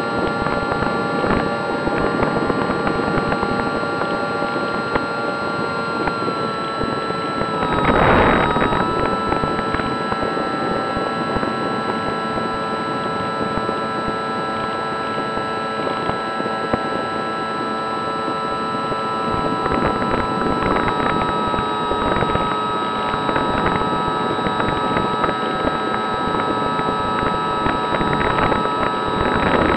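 Easy Star 2 RC plane's electric motor and pusher propeller whining steadily in flight, with wind rush on the onboard camera's microphone. The pitch drops slightly about seven seconds in, and a louder gust of wind noise comes about a second later.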